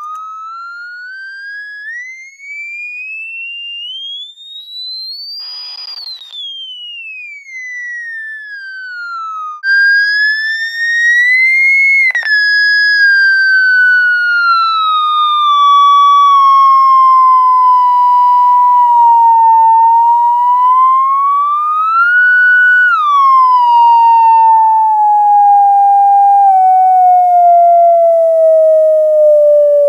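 Electronic tone from a tone generator played through a speaker, sweeping smoothly in pitch like a slow siren. It rises to a high whistle and falls again, breaks off briefly, then returns much louder and glides slowly downward with one short rise and fall, ending low. This is the frequency sweep that sets the plastic membrane above the speaker vibrating in standing-wave patterns.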